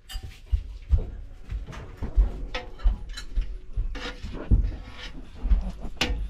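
Spoon scraping and clinking against a metal cooking pot as food is dished out into a bowl. Irregular knocks and clinks, some ringing, with dull low thumps of handling.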